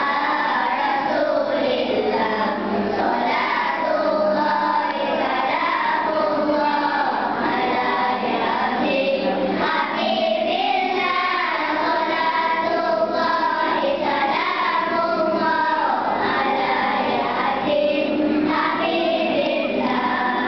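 A group of children singing a nasheed together as a choir.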